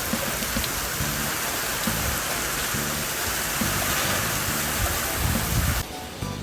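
Heavy typhoon rain pouring down in a dense, steady hiss, cut off abruptly near the end.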